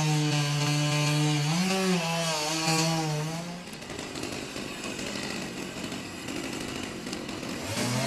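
Chainsaw engine running at a steady speed, with a brief rev about one and a half seconds in. A little past the middle the engine tone drops out, leaving a quieter rough noise, and the saw comes back revving at the very end.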